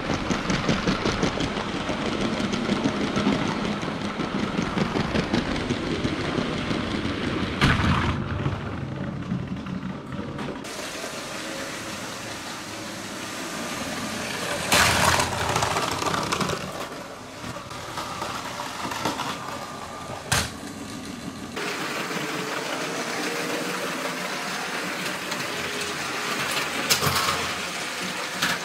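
LEGO Power Functions toy trains running on plastic track, a steady motor and wheel noise that shifts in character as the shot changes, with a few short sharp knocks.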